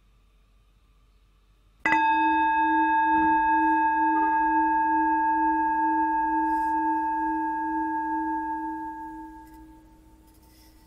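Singing bowl struck once about two seconds in, ringing with a low wavering tone and several higher overtones that slowly fade away over about eight seconds.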